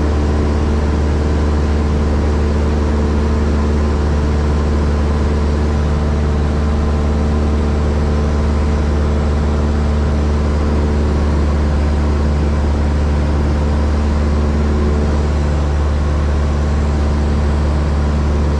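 Cessna 172's piston engine and propeller running steadily in cruise flight, heard from inside the cabin as a constant low drone.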